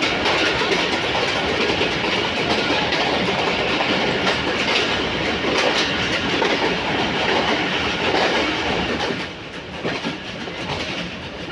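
Train running along the track, its wheels clacking over the rail joints, steady and loud, easing off somewhat about nine seconds in.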